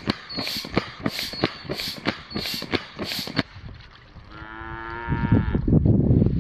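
Air pump inflating an inflatable raft, hissing in rhythmic strokes about three a second, which stop about three and a half seconds in. Then a single long cow moo, followed by a low rumble of wind on the microphone near the end.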